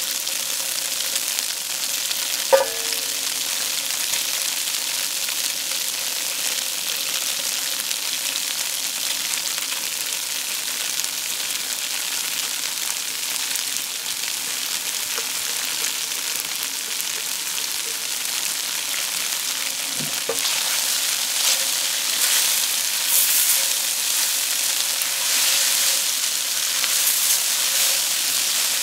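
Diced tofu, carrot and spring onion sizzling in oil in a steel wok, a steady high hiss. About two and a half seconds in there is a single sharp clink that rings briefly. In the last third a spatula stirs the rice through the pan, adding louder, uneven scraping over the sizzle.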